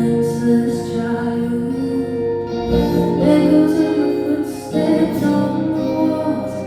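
Live music: a woman singing an original song with guitar accompaniment, the backing shifting about two and a half seconds in and again near five seconds.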